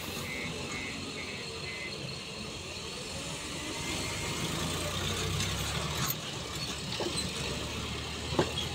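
JCB 3DX backhoe loader's diesel engine running steadily, growing a little louder about halfway through as the loaded front bucket is raised to the trailer. A few short knocks come in the last few seconds as the bucket tips its soil and stones.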